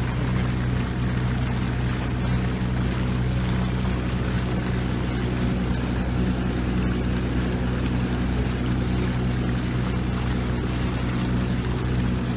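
A boat's motor running at a steady, even pitch, with a constant wash of water and wind noise.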